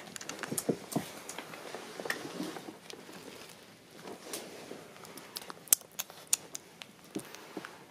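Irregular sharp clicks and rustling of dogs moving and nosing right against the microphone, with a few louder clicks near the end.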